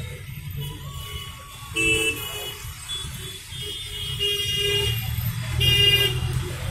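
Road traffic rumbling, with vehicle horns honking several times over it: about two seconds in, again around four and a half seconds, and loudest about six seconds in.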